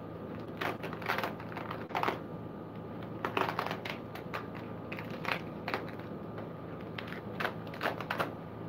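Packing material crinkling and rustling in short, irregular bursts as a parcel is unwrapped by hand, over a steady low hum.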